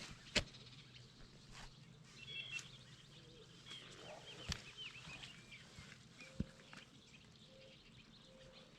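Faint bird chirps and short calls in a quiet outdoor setting, with a few sharp clicks or knocks.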